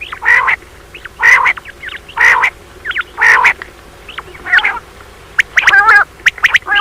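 Common quail calling: short, loud calls repeated about once a second, then a quick run of rapid chattering notes near the end, the female quail call used as a lure by quail hunters.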